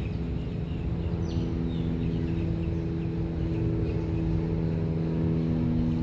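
A motor running steadily, a low drone holding several even tones. A few faint high chirps come through about a second in.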